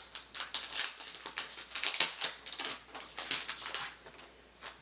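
Crinkling and rustling of packaging as a cleaning cloth is taken out and unfolded: a quick, irregular run of sharp rustles that thins out near the end.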